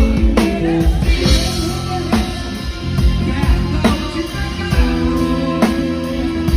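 Live band playing Christian pop-rock music: drum kit keeping a steady beat under bass, electric guitar and keyboard chords, with some singing.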